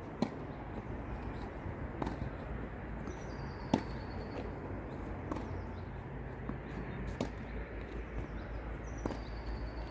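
Tennis ball hit back and forth in a doubles rally, a sharp racket pock about every two seconds, six in all.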